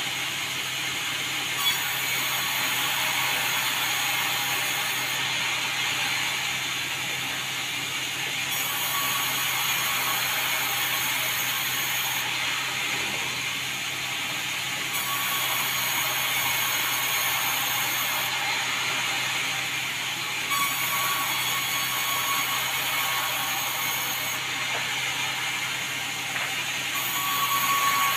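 Sawmill running and sawing timber with a steady mechanical noise; a high hiss comes and goes every few seconds.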